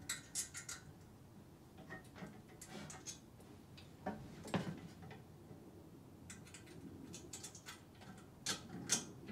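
Irregular light clicks and taps of small parts handled on a carpet-cleaning wand, as a screw is lined up and started by hand into the valve bracket.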